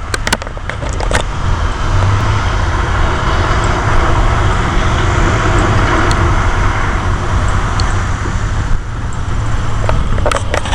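Steady outdoor rushing noise with a heavy low rumble. It swells through the middle, dips briefly near the end, and has a few sharp clicks near the start.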